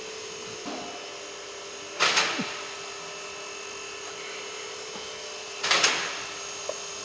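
Two short clatters about three and a half seconds apart, each ringing off over about half a second, from tools or parts being handled during the repair, over a steady hum.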